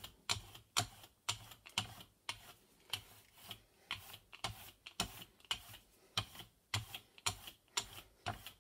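Rubber brayer rolled back and forth over a gel printing plate, spreading a thin layer of yellow paint. The tacky roller gives a sharp click at about two a second.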